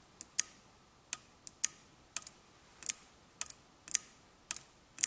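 Opened automotive relay clicking as its switch is flipped on and off, the armature pulling in and dropping out so the contacts close and open. A string of sharp clicks, a couple a second, some in close pairs.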